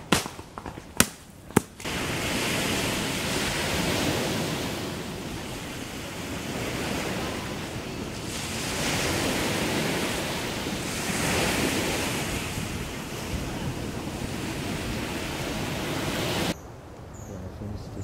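A few sharp knocks in the first two seconds, then the sea: waves washing in slow swells every few seconds, with wind rushing over them. The wash cuts off abruptly near the end.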